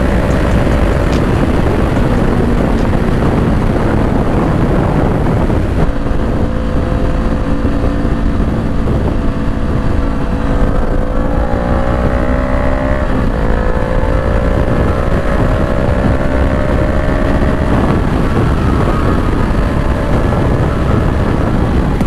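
Honda CBR500R's parallel-twin engine pulling under acceleration, its pitch climbing, dropping at a quick upshift about 13 seconds in, then climbing again. Heavy wind rush on the microphone.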